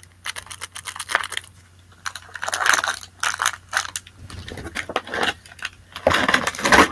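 Crinkling, rustling and small clicks and clinks of product packets and small items being handled and set down, in irregular bursts, busiest about halfway through and near the end.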